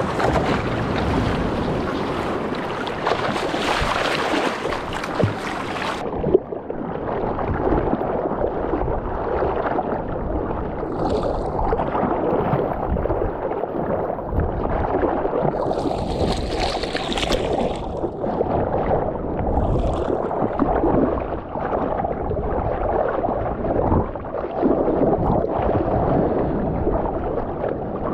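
Seawater washing and sloshing around a surfboard as the surfer lies on it paddling, close to the water, with wind rushing on the microphone. About six seconds in the wind rush drops away and the water sound turns duller, with louder splashes about eleven, sixteen and twenty seconds in.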